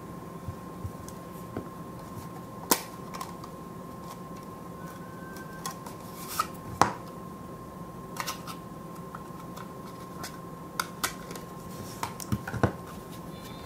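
Plastic clicks and taps from a clear plastic 2.5-inch SSD enclosure being handled and opened and a SanDisk Ultra Plus SSD lifted out of it. Scattered single clicks, the sharpest about three and seven seconds in, and a quick run of clicks near the end.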